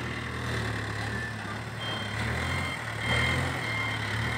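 Case 770EX backhoe loader's diesel engine running under load while its front loader bucket is raised to tip soil into a tipper truck. The engine gets louder about three seconds in.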